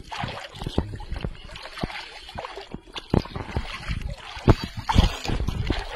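Water splashing and sloshing irregularly in a shallow pond, with sharp splashes, the loudest about four and a half and five seconds in.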